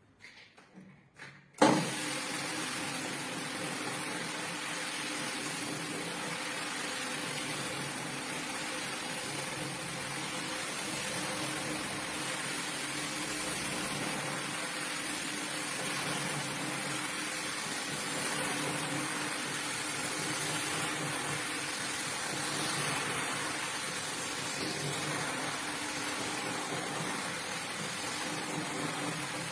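A motorized rug-cleaning machine switches on suddenly about two seconds in and runs steadily, a hissing rush over a low hum.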